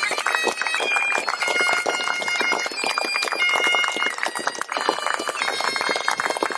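Many hands clapping steadily, with a bagpipe tune playing over the applause.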